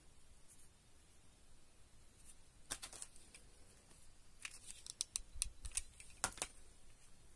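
Light, sharp clicks and taps from small craft pieces being handled: a few about three seconds in, then a quicker run of clicks from about four and a half seconds.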